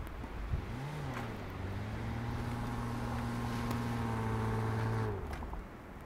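Honda Ridgeline's V6 engine revving up about a second in and held at steady revs for about four seconds while the pickup backs through deep snow, then easing off shortly before the end.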